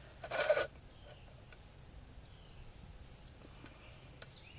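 Steady high-pitched insect chirring, with one brief noise about half a second in.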